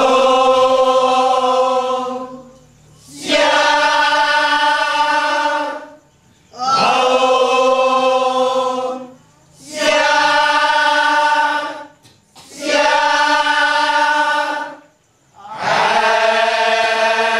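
Kecak chorus of men's voices singing long held notes in unison, six sustained phrases of two to three seconds each on a steady pitch, with brief breaks for breath between them.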